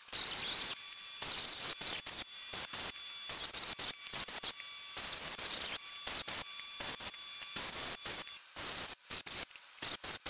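Hand-held power tool abrading metal: a harsh hiss with a thin high whine, which starts and stops abruptly many times.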